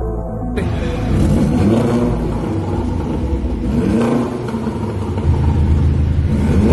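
Volkswagen Polo GTI with a Remus aftermarket exhaust revving, its pitch rising and falling twice, then holding a steadier drone from about five seconds in.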